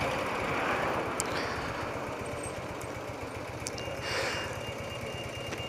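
Old BMW motorcycle's engine running at low revs as the bike rolls slowly and eases off, with steady rushing road and air noise. About two-thirds of the way in a steady high-pitched beep starts, fitting a pedestrian crossing's signal.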